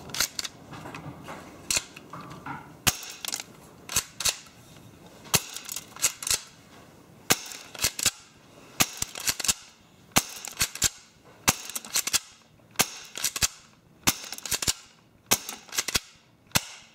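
HFC HA118 spring-powered airsoft pistol fired shot after shot through a chronograph: sharp snaps, often in close pairs, about one to two a second.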